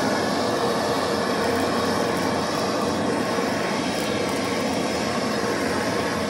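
Gas blowtorch burning steadily, its blue flame singeing the leftover feathers and skin of a plucked chicken; an even, unbroken noise.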